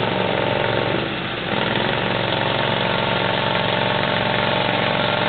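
A vehicle engine idling steadily, with a brief dip in level about a second in.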